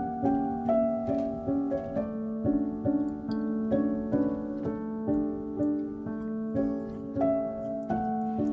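Instrumental background music: a steady run of notes over a held low note.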